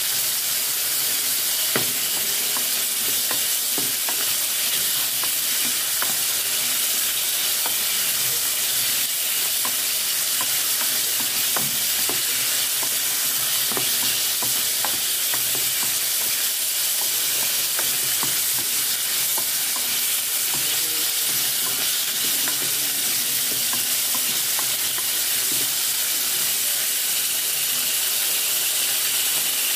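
Pork chunks sizzling steadily as they sauté in a nonstick pot, stirred with a wooden spatula that clicks and scrapes against the pot many times.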